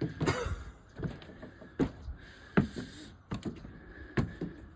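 Footsteps knocking on the steps of an observation tower as people climb it, an irregular series of thuds and knocks.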